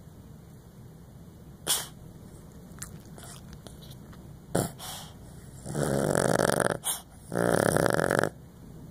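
Dog snoring in its sleep: two long snores of about a second each in the second half, after two short, sharp breaths earlier on.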